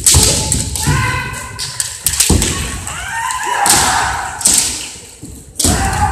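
Kendo bout: fencers' long kiai yells and about four sharp cracks of bamboo shinai strikes and stamping feet on a wooden floor, echoing in a large gymnasium.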